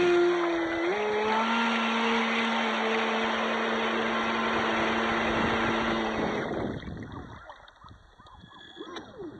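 Traxxas Spartan RC speedboat's brushless electric motor whining under throttle, stepping up in pitch about a second in. About six seconds in the motor cuts off and the boat coasts, leaving only quiet splashing and lapping of water against the hull.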